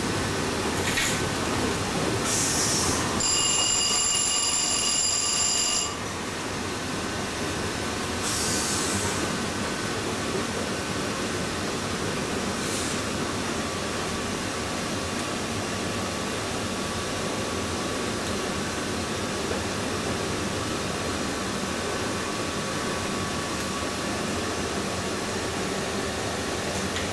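Paddle steamer's steam engine running, its crankshaft turning with a steady mechanical rumble and a few short hisses. A few seconds in, a ringing signal tone sounds for about two and a half seconds, typical of the engine-room telegraph signal from the bridge.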